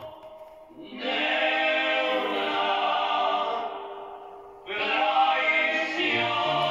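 Choral music: voices holding long chords. A chord swells in about a second in and fades, and a new one enters sharply near the two-thirds point.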